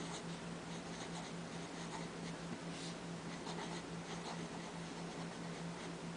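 Pilot Plumix fountain pen with a small italic nib writing on paper: faint, short scratching strokes of the nib as letters are formed, over a steady low hum.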